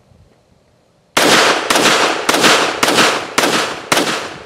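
Walther WMP pistol firing .22 Magnum (.22 WMR) rounds: a rapid string of sharp shots, about two a second, beginning about a second in, each with a short fading tail.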